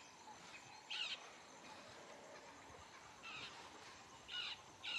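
Faint outdoor ambience with four short bird calls: one about a second in and three more near the end.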